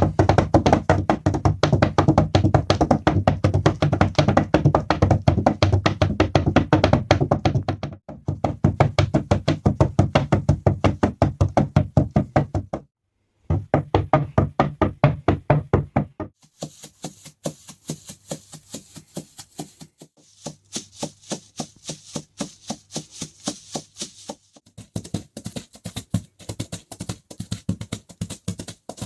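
Foley horse hoofbeats: quick, rhythmic clip-clop knocks, several a second, with a short break about 13 seconds in. The second half is lighter, with a hiss over some passages.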